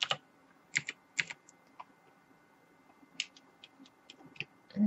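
Computer keyboard keystrokes: about a dozen short single clicks at irregular intervals, some in quick pairs.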